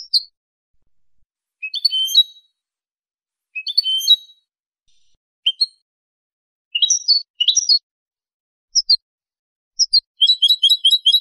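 European goldfinch singing: short high twittering phrases broken by brief pauses, ending near the end in a fast run of about eight repeated notes.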